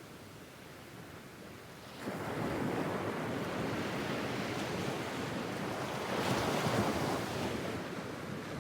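Medium-sized sea waves breaking on a sandy beach: a quiet lull, then a wave crashes about two seconds in and rushes up the sand, peaking with a hissing wash near the end before ebbing away.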